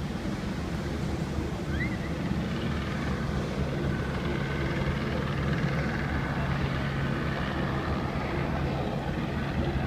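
Steady low drone of a tug's diesel engines, with water churning and rushing alongside the hull.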